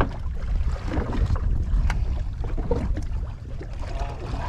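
Low rumble of wind buffeting the microphone aboard a small boat at sea, with a few light knocks and clicks scattered through it.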